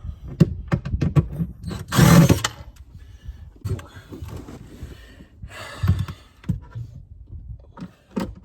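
Screws being taken out of a cabinet wall: scattered clicks and knocks of tool and hand work on the cabinet, with two short louder bursts, one about two seconds in and one near six seconds.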